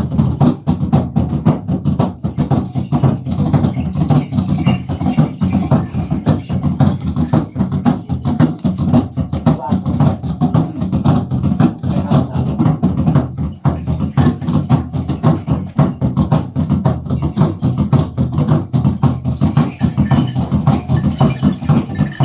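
Fast, steady percussion for ritual dance: many sharp, evenly spaced strokes a second over a low, drum-like beat, with a voice over it.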